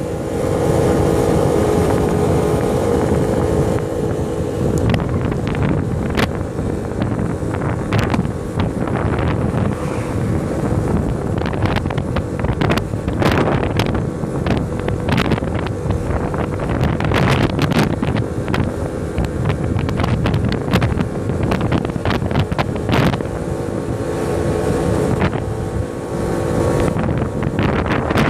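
Kymco quad bike's engine running at steady speed while riding, with heavy wind noise on the microphone. Frequent sharp crackles come through the middle, where the engine hum is partly drowned out before it comes back clearly near the end.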